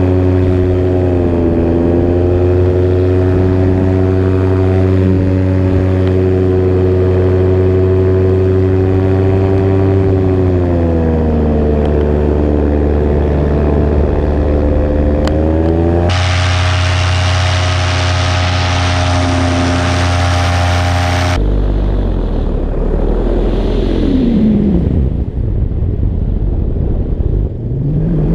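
Paramotor engine and propeller running steadily in flight, the pitch dipping slightly about a second in and again about ten seconds in. A hiss joins for about five seconds, then the engine sound cuts off abruptly and a low rumble is left.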